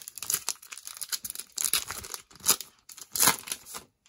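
Plastic wrapper of a trading-card cello pack being torn open and crinkled: a run of crackling rips, loudest about two and three seconds in.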